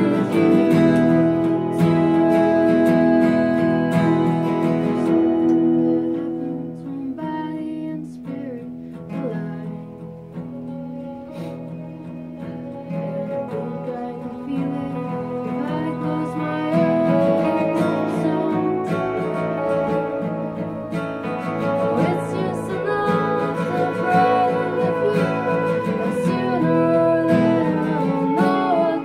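Live acoustic performance: an acoustic guitar and an electric keyboard playing a song, with a woman singing. The music drops to a softer passage about six seconds in and builds back up a few seconds later.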